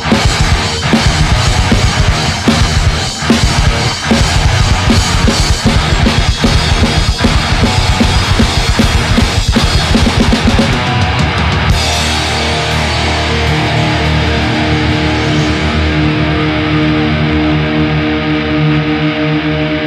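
Thrash metal band playing distorted electric guitars, bass and drums with fast, dense drum hits. About twelve seconds in the drumming stops and a held guitar chord rings on, slowly fading.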